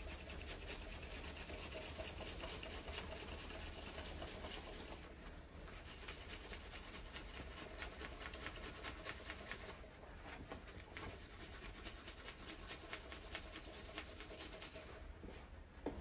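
Quick, repeated scrubbing strokes on the oil-pan mating face of a Mazda 13B rotary engine, rubbing off black liquid-gasket sealant that parts cleaner has softened. The scrubbing breaks off briefly about five and ten seconds in.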